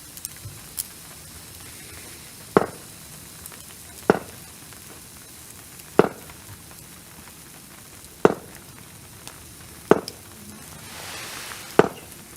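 Food sizzling on a barbecue grill: a steady faint hiss. Over it come six sharp knocks, about one every two seconds, and these are the loudest sounds.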